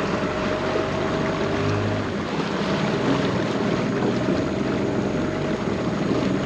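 Boat engine running steadily at an even speed, with a constant hum and the rush of water and wind around it.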